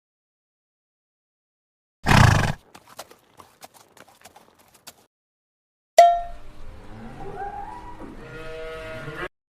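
A horse: a short loud noisy blast about two seconds in, a few faint clicks, then from about six seconds a whinny of about three seconds whose pitch wavers.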